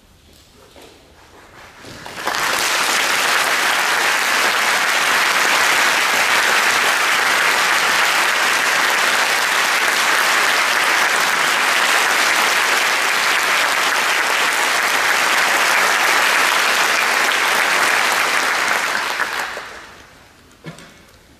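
Audience applauding: the clapping starts about two seconds in, holds steady, then dies away near the end, followed by a single short knock.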